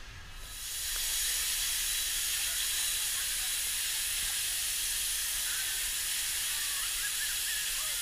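A steady, even hiss that sets in within the first second and holds level throughout, with faint short chirp-like sounds over it in the second half.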